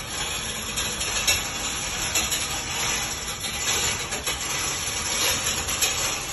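A heavy generator unit being pushed and dragged across a concrete floor: a continuous scraping, grinding noise with scattered metallic clicks and knocks.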